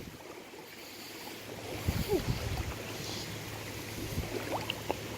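Rushing river water running over rocks, with wind buffeting the microphone.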